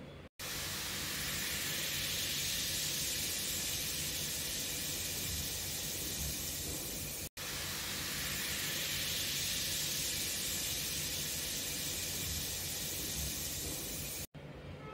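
Cleaning liquid fizzing and hissing in an aluminium kadai as it foams with bubbles. It is a steady hiss, broken twice by short cuts.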